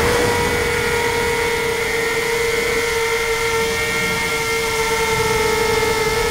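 Tricopter's electric motors and propellers running at a steady whining pitch, heard from the camera on board, with wind buffeting the microphone underneath.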